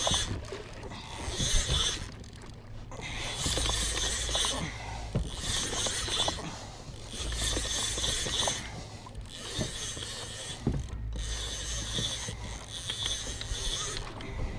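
A heavy saltwater fishing reel being cranked in repeated spurts of about a second, a ratcheting mechanical whir, as the rod is pumped to gain line on a hooked bull shark.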